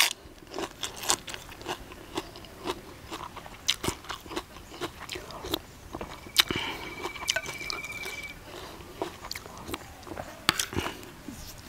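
Close-up chewing of raw vegetable leaves and crispy-skinned duck larb, with many irregular crisp crunches and clicks of biting and mashing in the mouth.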